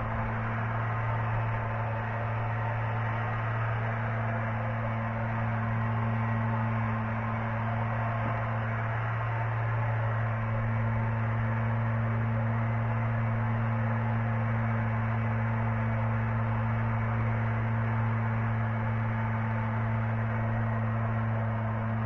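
Steady low hum with an even hiss over it, unchanging throughout.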